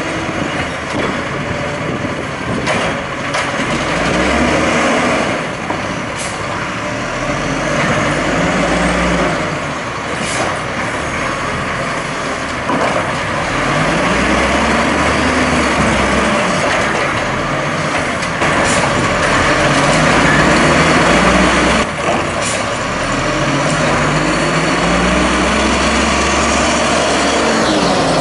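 LNG-powered 1994 WhiteGMC WX-64 garbage truck with an Amrep rail-arm automated side loader, its engine revving up and down several times while the hydraulic arm picks up and empties a cart. Several short, sharp air-brake hisses come in between.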